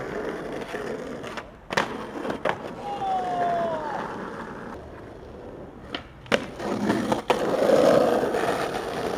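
Skateboard wheels rolling over rough asphalt, louder near the end, with a few sharp clacks of the board against the ground. A short squeak falling in pitch about three seconds in.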